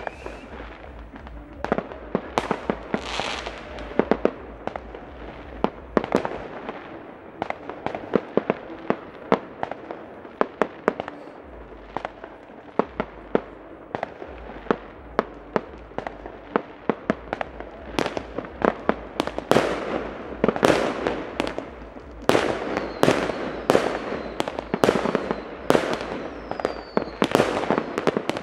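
Fireworks going off: a steady string of sharp bangs and crackling pops from aerial shells and firecrackers, growing denser in the last third, with a faint falling whistle near the end.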